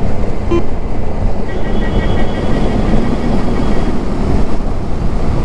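Heavy wind blast on the microphone of a motorcycle moving at speed, a loud steady rush strongest in the lows, with traffic noise mixed in.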